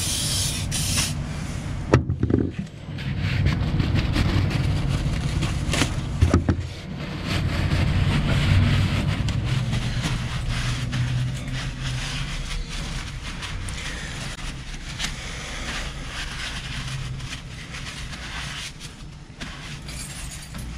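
Rag rubbing and hands knocking on a marine gearbox and its drive coupling as spilled oil is wiped off, with a couple of sharp knocks early on, over a steady low rumble.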